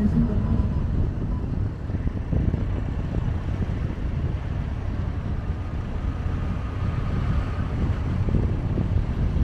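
A vehicle driving along a road: a steady low rumble of engine and road noise, with wind noise on the microphone.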